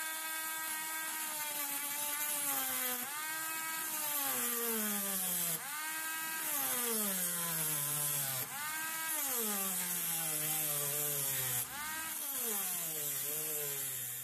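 Rotary tool (Parkside, Dremel-type) with a cut-off disc grinding a slot into the end of a steel screwdriver bit. The motor whine sags in pitch as the disc bites into the steel and springs back up, over and over, about every three seconds, five times in all.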